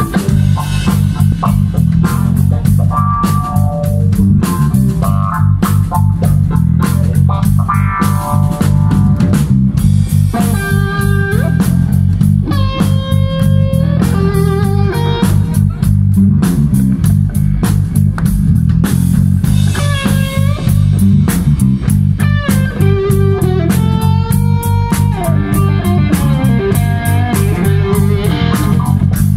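Live rock band playing: an electric guitar plays bending lead lines over bass guitar and drum kit.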